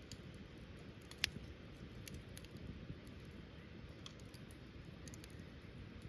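Wood fire crackling in a small metal fire stand: scattered sharp pops and ticks, with one louder pop about a second in, over a low steady rumble.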